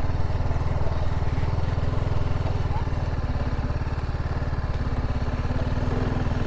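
Motorcycle engine running steadily as the bike crawls along at walking pace, its exhaust pulses even and unchanging, with no revving.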